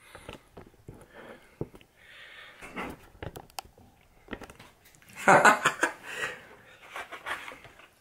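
Molded-pulp cardboard egg carton being handled and its lid worked open: scattered clicks and crackly scrapes of the cardboard, with the loudest scraping crackle about five seconds in.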